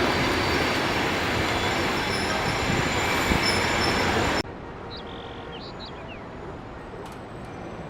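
A train running on the rails, a loud, steady rumble and rattle of wheels and cars. It cuts off suddenly a little over four seconds in, leaving a quiet background with a few faint high chirps.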